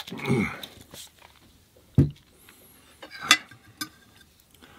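A short vocal sound after a drink from a glass bottle, then a dull knock about two seconds in, and two sharp clinks of a metal fork against the plate near the end.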